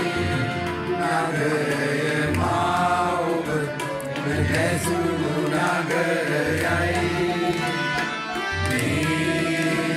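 A song with a singing voice over hand-drum strokes.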